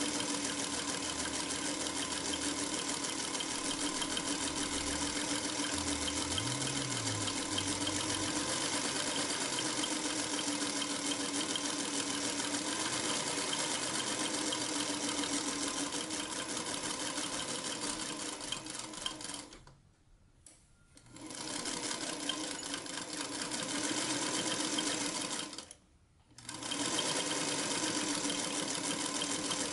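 Singer Featherweight 221 vintage sewing machine (c. 1951) stitching through fabric, its mechanism whirring with a fast, even stitch rhythm. It slows and stops twice, for about a second a little before two-thirds of the way through and briefly again near the end, each time starting up again.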